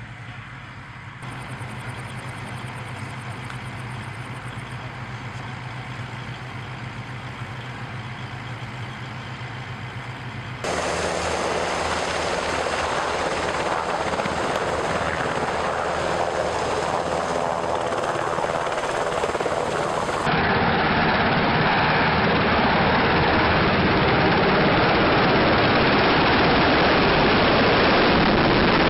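UH-60 Black Hawk helicopter's twin turboshaft engines and rotors running without a break: a steady low hum at first, louder about a third of the way in, and loudest from about two-thirds of the way in, with rotor wash blasting close by.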